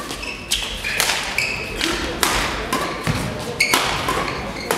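Badminton rally: rackets striking the shuttlecock in quick sharp hits, every half second to a second, with shoes squeaking briefly on the court floor between strokes.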